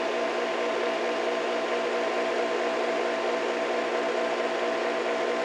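Grundfos MQ3-45 pressure booster pump running with the water turned off, a steady hum with a hiss, still building up pressure toward its automatic cut-out.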